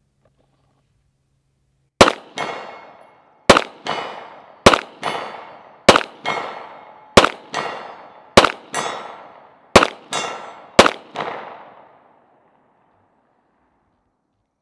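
Eight slow, aimed shots from a Taran Tactical STI Combat Master 2011 9mm pistol, a little over a second apart. Each shot is followed a moment later by the ringing clang of a distant steel gong being hit, and the ringing dies away after the last shot.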